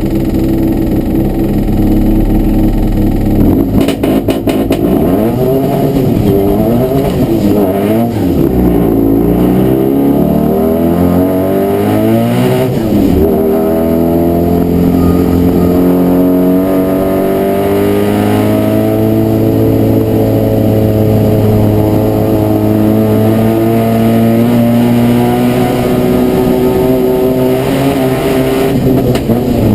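Supercharged BMW flat-twin engine in a Citroen 2CV hillclimb car, running steadily for a few seconds, then revving hard and accelerating through the gears. The pitch climbs and drops back at each shift.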